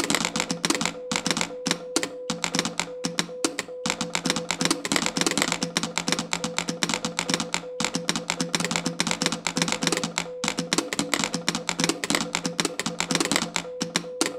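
A bank of telegraph keys clicking rapidly and unevenly, many clicks a second, tapping out text letter by letter. A steady mid-pitched beep switches on and off behind the clicking.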